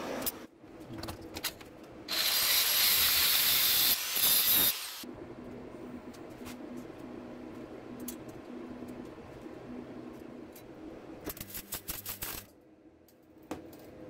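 Clicks and taps of steel cutlery being handled and worked. About two seconds in comes a loud hiss lasting about three seconds, and near the end a quick run of clinks.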